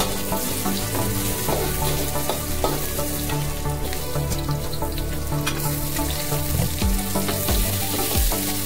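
Aromatics sizzling and crackling in hot oil in a wok while being stirred with a metal spatula: shallots and garlic, with crushed lemongrass, galangal, ginger and sliced red chilli added. Catfish are frying in a second pan.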